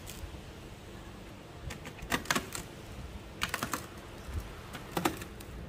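Three quick, irregular clusters of light clicks and taps, hard objects knocking against each other.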